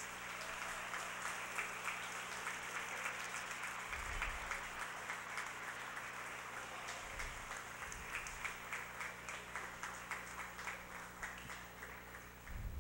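Audience applauding steadily with many hands clapping, tapering off toward the end.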